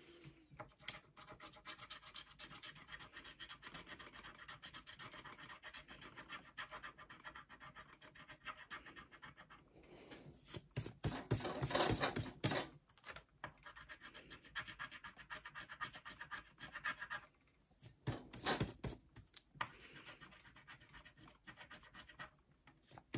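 A coin scraping the coating off a scratch-off lottery ticket on a tabletop, in quick repeated strokes, with louder spells about halfway through and again a little later.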